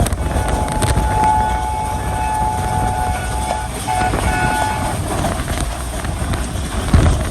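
Diesel locomotive horn sounding two blasts, a long one and then a short one, over the running train's low rumble and wind noise.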